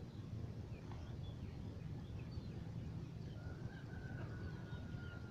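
A distant rooster crowing once, a long drawn-out call starting a little past halfway, with scattered small bird chirps over a low steady rumble.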